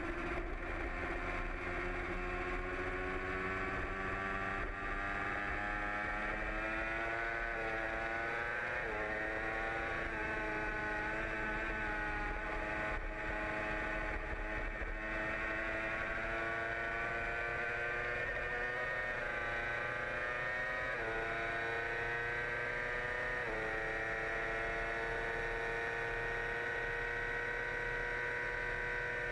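A 2008 Yamaha R6's 600 cc inline-four engine running at high revs under racing load. It is a steady, high-pitched drone whose pitch climbs slowly, with a brief dip about nine seconds in and a couple of sudden steps later on.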